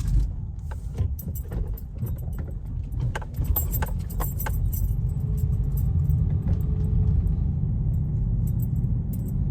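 Car driving, heard from inside the cabin: a steady low rumble, with light rattling clicks during the first half as it goes over a speed bump. No metal-on-metal suspension knock is heard; the worn suspension part has just been replaced.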